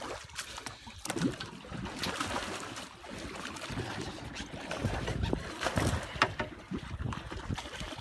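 Water splashing and churning as a large skate thrashes its wings at the surface beside a boat, with a few sharp knocks and gusts of wind on the microphone.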